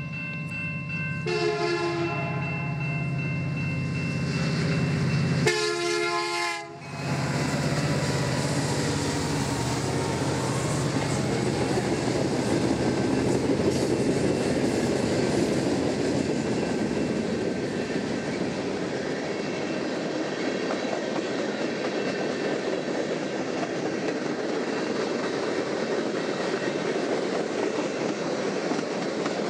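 Diesel freight locomotive's air horn sounding during the first seven seconds, with a blast at about one to two seconds and another at about five and a half to seven seconds. After that comes the steady noise of a long freight train's wheels rolling along the rails as the cars pass.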